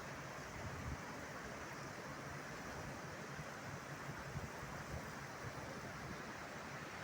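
Steady rush of the Penna River flowing at full volume, brimming to its banks, with wind buffeting the microphone.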